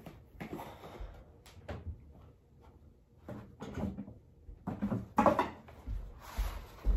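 Rummaging in a cardboard box: rustling packaging and scattered knocks as wrapped prop parts are lifted out, loudest about five seconds in.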